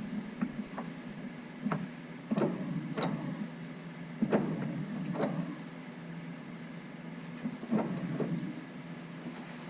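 A steady machine hum in a machine shop, broken by about nine irregular sharp metallic knocks and clanks, the loudest a little past four seconds in.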